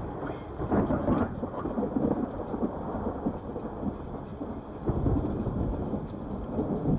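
Thunder rumbling from a close thunderstorm, swelling about a second in and again about five seconds in, over a steady rushing background.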